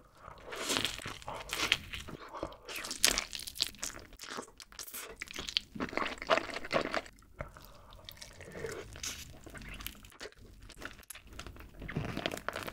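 Close-miked eating: a person biting into a cheeseburger and spicy barbecue-glazed chicken and chewing, with many irregular crisp bite and chew noises.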